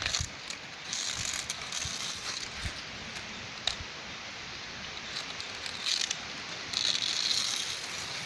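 Dry coconut leaflets being peeled and torn away from the frond's midribs to free the sticks for a coconut broom: scratchy ripping and rustling with scattered small snaps, over a steady hiss. There are two longer ripping strokes, about a second in and again near the end.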